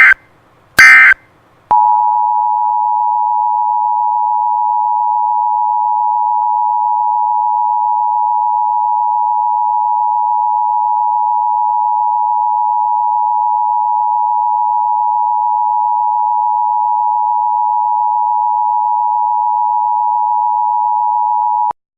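Emergency Alert System signal: two short, loud bursts of shrill digital data, then a steady two-tone attention signal held for about twenty seconds that cuts off suddenly near the end.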